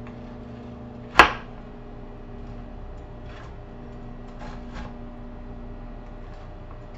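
A large butcher knife chops down hard onto a cutting board once about a second in, then taps lightly a few more times while slicing vegetables. A steady low hum runs underneath.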